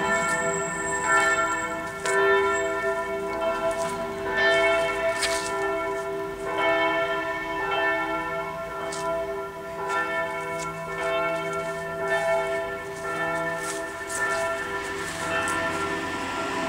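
Church bells ringing, struck about once a second, each stroke ringing on into the next.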